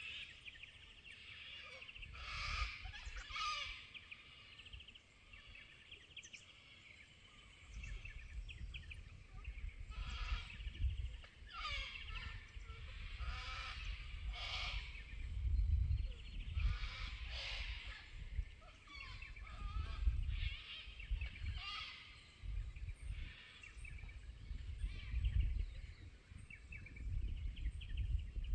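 Koalas screaming in a run of repeated, goat-like wailing cries, the calls made around mating. A low rumble of wind on the microphone runs beneath the cries from about a third of the way in.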